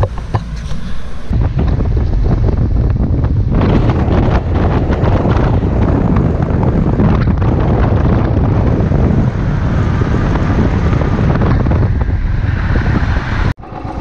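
Wind rush buffeting the microphone of a camera on a Royal Enfield motorcycle riding at speed on a highway, with the bike's engine and road noise underneath. The sound changes abruptly just over a second in and cuts out briefly near the end.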